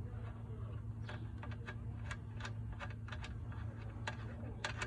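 Ratchet wrench clicking in quick irregular runs, a few light clicks a second, as the oil drain plug is being loosened, over a steady low hum.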